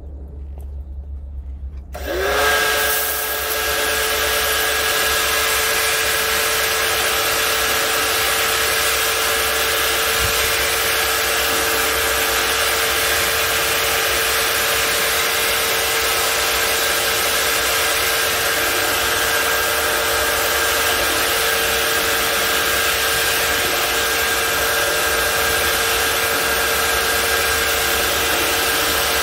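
Pressure washer starting up about two seconds in, rising briefly in pitch, then running at a steady whine. Its water jets hiss as they spray from the wheeled undercarriage cleaner against the car's underbody.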